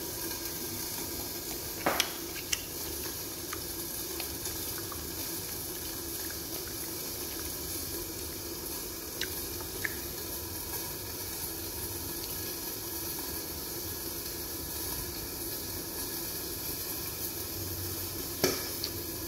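Chicken sizzling as it cooks, a steady hiss throughout, with a few light clicks and knocks, the sharpest about two seconds in and near the end.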